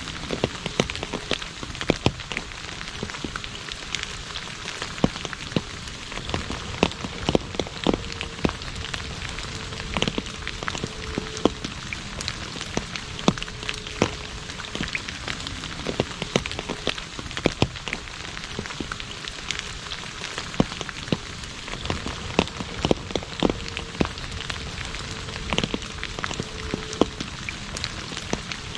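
Steady rain falling on an asphalt road: an even hiss with frequent sharp drop impacts.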